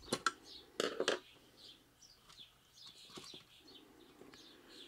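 A few sharp clicks and knocks in the first second or so, from a screwdriver taking the last screw out of a soup maker's plastic base plate and the plate being handled, then quieter handling. Small birds chirp faintly throughout.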